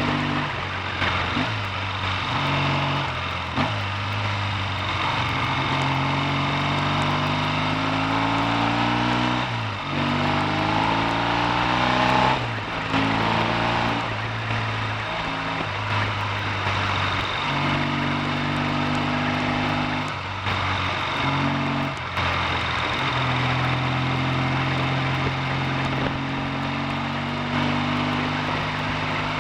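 Triumph T140V's 750 cc parallel-twin engine under way on the road, its pitch rising under acceleration and dropping back several times as the rider changes up and down through the freshly rebuilt five-speed gearbox.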